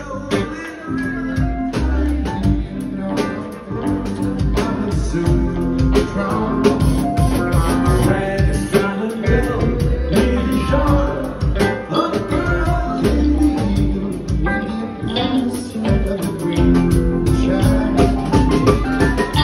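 Live rock band playing: two electric guitars over a drum kit and bass, heard from the audience floor.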